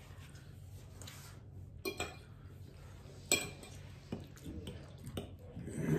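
Metal fork clinking and scraping against a plate of pasta, a few short clinks with the loudest about three seconds in.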